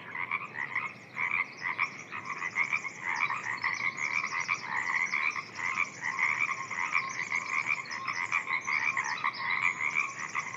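A chorus of many frogs calling steadily in a wetland, their rapid pulsed calls overlapping without pause, with thin, higher-pitched rapid trills woven through.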